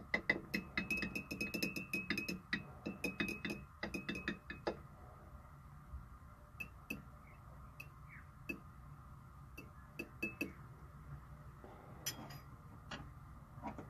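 Glass stirring rod clinking rapidly against the inside of a glass beaker while stirring a solution for about the first four to five seconds, then a few scattered single clinks. A short rustle near the end.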